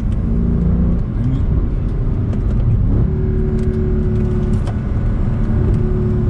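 Mercedes C63 AMG Edition 507's 6.2-litre V8 running under load on track. Its pitch drops about a second in, climbs near three seconds and then holds steady.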